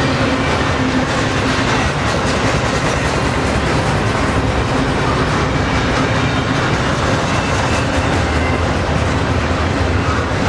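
Double-stack intermodal well cars rolling past: the steady, loud noise of steel wheels running on the rails.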